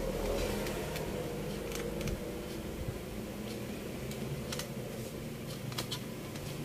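Light scattered clicks and taps of multimeter probes and a circuit board being handled on a workbench, a few sharp ticks spread over several seconds. A low rumble fades out at the start.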